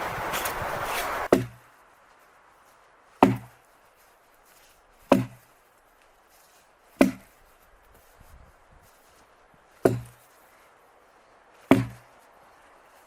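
Wood being chopped: six sharp blows about two seconds apart, each with a short low thud after it. Before the first blow, a loud steady rushing noise cuts off abruptly.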